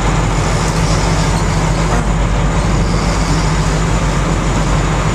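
Fishing boat's engine running steadily at low speed, a constant low drone under a steady rushing noise.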